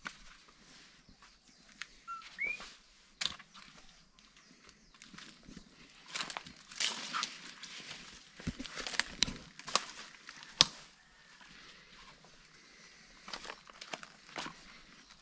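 Footsteps crunching over dry leaves and rock, with scattered sharp clicks and knocks that come thickest in the middle. A bird gives one short rising chirp about two seconds in.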